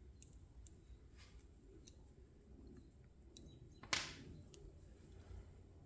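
Faint clicks and small taps of metal-and-plastic model crane boom cylinders handled in the fingers, with one sharper click about four seconds in.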